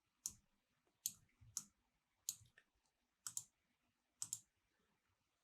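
Computer mouse clicking: single and double clicks at roughly one-second intervals, about eight in all, over near silence.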